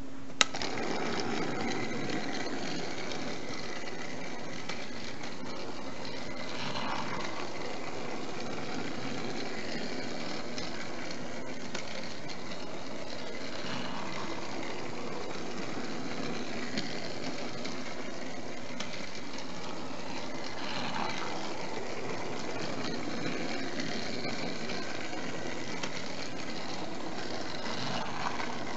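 A motorised TrackMaster Revolution Thomas toy engine switched on with a single click, then its small battery-powered motor running steadily as it travels along plastic track.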